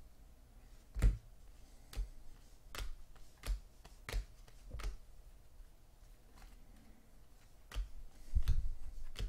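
A stack of trading cards being flipped through one at a time, each card snapping against the stack in a sharp click, roughly one a second, with a quick flurry of clicks near the end.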